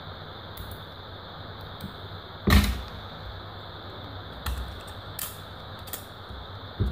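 Scattered light clicks and taps of a Redmi Note 5 being handled and taken apart by hand, its plastic and metal parts knocking together, with one louder knock about two and a half seconds in.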